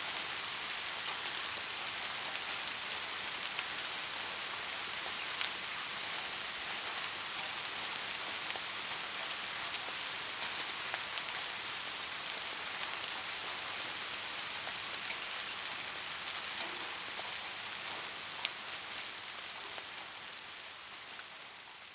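Steady rain falling, a dense even hiss with scattered sharp drop hits, fading out near the end.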